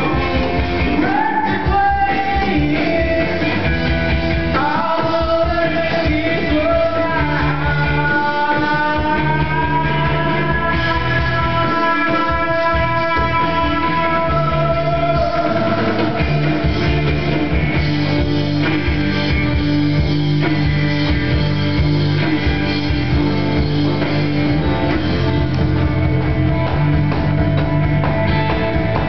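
Loud rock music with a singer's voice sliding up into long held notes over guitar and drums.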